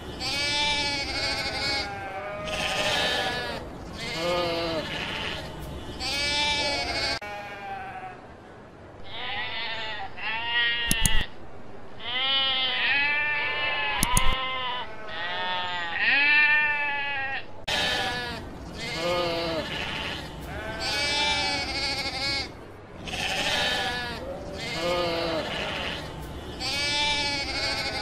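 Sheep bleating again and again, many calls overlapping, each about a second long with a quavering pitch. Two sharp knocks stand out about halfway through.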